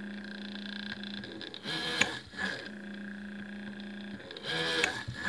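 Small DC motor of a homemade PCB drill press running at a low idle with a steady hum, twice speeding up as a fine bit cuts through an FR-4 circuit board, about two seconds in and again near the end. Its speed controller raises the speed when the bit is loaded.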